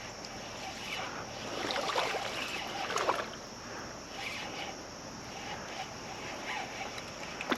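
Flowing creek water with irregular splashing, as a hooked smallmouth bass thrashes at the surface while it is played in. The splashes are loudest about two and three seconds in.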